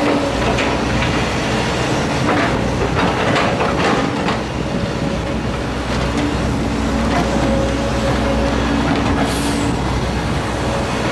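Volvo EC210 excavator's diesel engine running steadily, with scattered scrapes and knocks as the bucket tears up the road surface.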